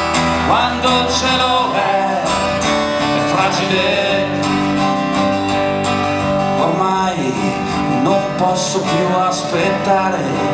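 A man singing into a microphone while strumming an amplified acoustic guitar, a solo live song performance.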